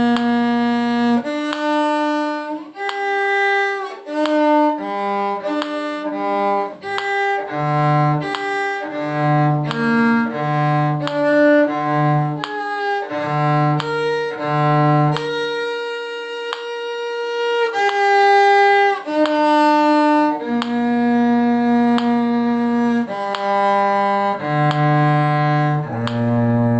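Violin with a lower bowed string such as viola or cello playing a lively practice tune together: a string of separate notes, a higher line over a lower one, with a long held note about two-thirds of the way through.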